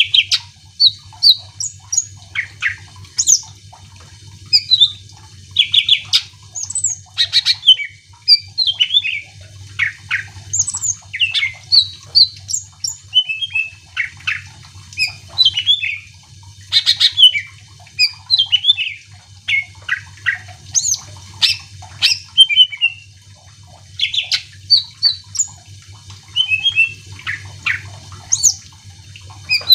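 Cucak ijo (green leafbird) singing in full voice: a fast, varied run of short whistles, chirps and trills in bursts with brief gaps, over a steady low hum.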